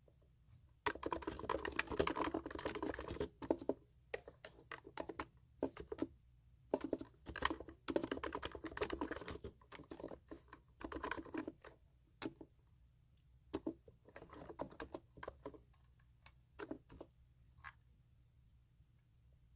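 Computer keyboard being typed on in quick runs of keystrokes with short pauses between them, the densest run about a second in, thinning to scattered single key clicks near the end.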